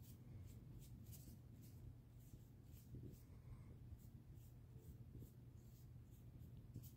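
Faint scratchy strokes of a small dry bristle brush dragged and flicked across raised wall moulding while dry-brushing gold paint, about two or three strokes a second, over a low steady hum.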